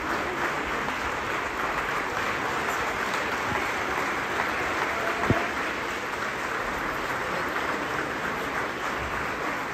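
Theatre audience applauding steadily, with one brief thump about five seconds in.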